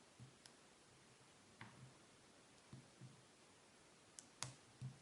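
Faint, scattered clicks of a lock pick and tension wrench working the pins inside an ABUS 34CS-55 padlock, about seven light ticks with the sharpest near the end, as the core goes into a definite false set.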